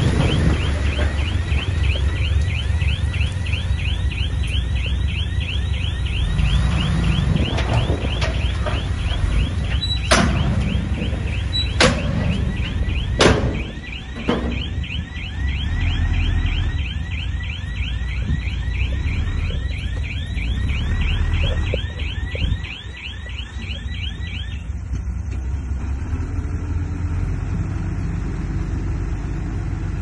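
Komatsu bulldozer's diesel engine running steadily under a rhythmic high chirping, about three chirps a second, that stops a little over three-quarters of the way through. Three sharp bangs come close together near the middle.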